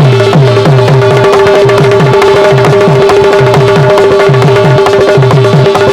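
Instrumental interlude of Bundeli folk music: a hand drum plays quick bass strokes that bend down in pitch, over a steady held tone.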